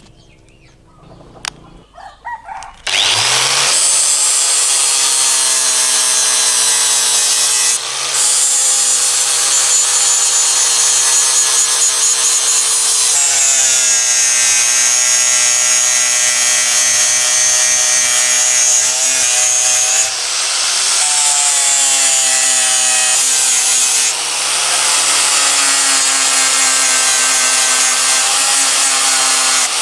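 Angle grinder starting up about three seconds in, then running steadily as its wheel grinds rust off the steel handles of old pliers. Its whine shifts in pitch several times. A few faint clicks come before it starts.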